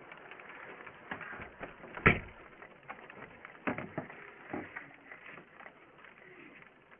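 Raindrops tapping irregularly on a security camera's housing, with one sharp, loud tap about two seconds in.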